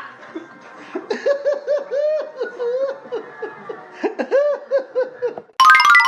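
Comic laughter sound effect: a fast string of short, high, squeaky giggle notes, each rising and falling in pitch. Near the end it cuts to a sudden bright run of ringing notes stepping down in pitch.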